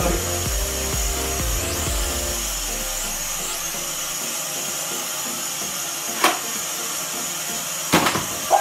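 Small Q39W toy quadcopter hovering, its propellers buzzing steadily. A sharp shot comes about six seconds in and another near the end: the Nerf Mega blaster firing at it.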